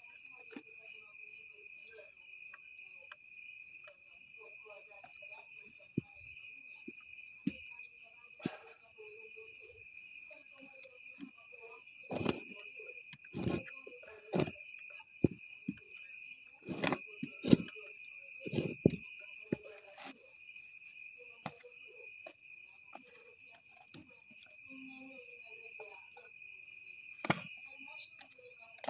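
A steady night chorus of crickets, with irregular knocks and scrapes of a wooden stirring stick against a metal pot as stiff ugali is stirred over a fire. The knocks come in a cluster in the middle and once more near the end, the loudest about two-thirds through.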